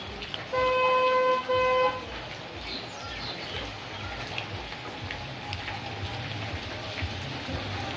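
A vehicle horn honks twice in quick succession, a long steady note then a shorter one, over a steady hiss of background noise.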